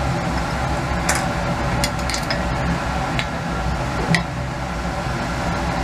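Light clicks and clinks of a glass separatory funnel being handled and stoppered, a few sharp taps with the loudest, slightly ringing one about four seconds in, over a steady hum of lab ventilation.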